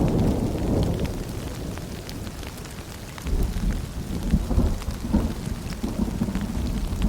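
Steady rain with rolling thunder. A low rumble fades away over the first few seconds, and a new one starts about three seconds in, with the patter of drops throughout.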